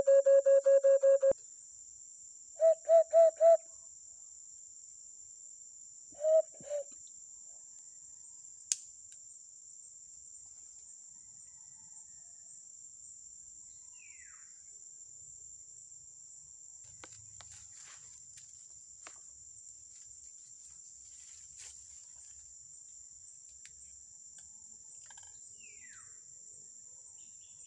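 Bamboo alimokon caller blown in a quick run of short pitched notes that stops about a second in. It then gives a burst of three notes and, a few seconds later, two more. After that a steady high insect drone carries on, with a faint falling chirp twice.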